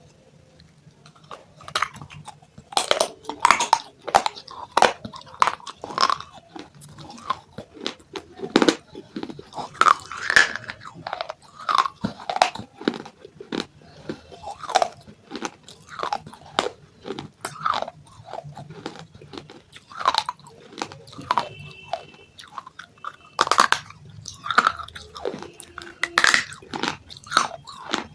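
Close-miked biting and chewing of broken clay pot pieces: crisp, dry crunches come roughly every half second to a second, starting about two seconds in.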